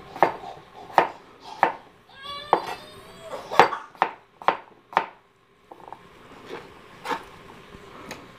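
Chef's knife dicing raw potatoes on a cutting board: sharp chops at an uneven pace, about one or two a second, then lighter, sparser taps over the last few seconds. A brief high squeal about two seconds in.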